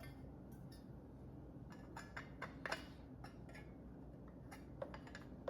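Scattered light clicks and taps of a cover being handled and fitted onto a sewing machine's knee speed controller, with a small cluster of sharper clicks about halfway through.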